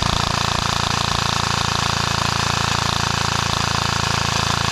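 Airsoft gun firing full-auto in one long sustained burst: a fast, steady mechanical rattle that starts abruptly.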